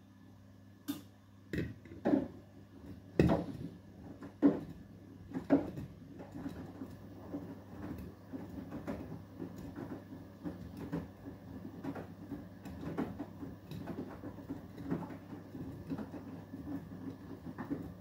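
Beko WTK104121W front-loading washing machine in the wash phase of an Eco 40 cycle. About a second in, the drum starts turning, with a few loud thuds and splashes as the wet load drops. After that it settles into steady sloshing and churning of water and clothes.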